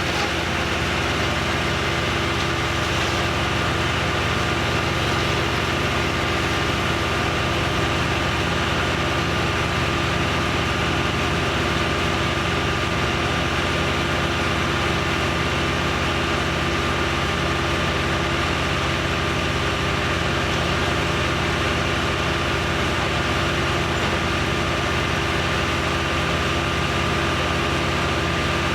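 An engine running steadily at an even pitch, with no revving or changes in speed.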